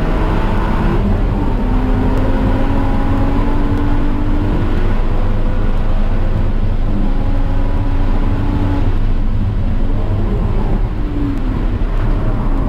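Car engine lapping a racetrack at speed, its note rising through the revs and dropping back several times, over a heavy, steady low rumble of wind and road noise.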